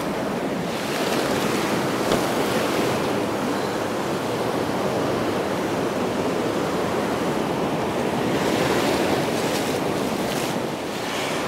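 Breaking surf and foamy wash running over shallow sand: a steady rush of sea noise that swells a little twice.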